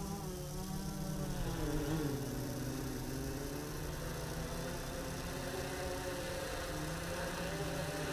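Phantom 3 Standard quadcopter's propellers humming. The pitch dips and comes back up about two seconds in as it descends and slows, then holds steady.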